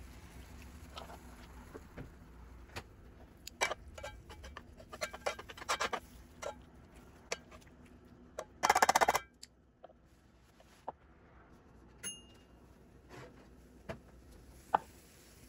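Kitchen handling sounds: scattered clicks and knocks of utensils and dishes, busier about five seconds in, with a loud rapid rattle lasting under a second about nine seconds in.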